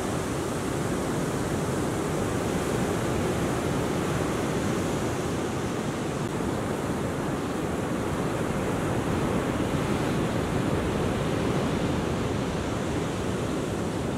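Ocean surf: a steady, continuous wash of waves breaking and whitewater rolling in, with no separate crashes standing out.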